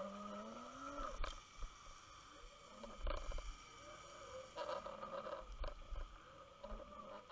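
Underwater sound of a fluke rig and its camera being dragged over a shell-covered bottom: short low rumbles and several sharp knocks as the rig bumps along, with faint wavering tones that rise and fall.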